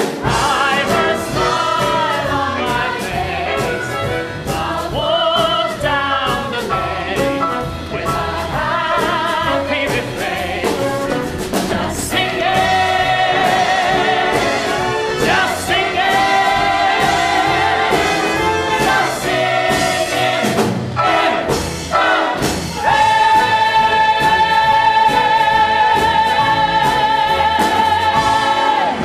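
Full ensemble chorus singing over a live stage band, moving from sung phrases into sustained held chords about halfway through, and finishing on one long, loud held chord over the last six seconds.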